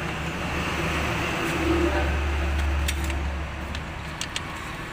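Steady low mechanical hum, stronger through the middle, with a few light metallic clicks as a socket wrench is worked on a bolt.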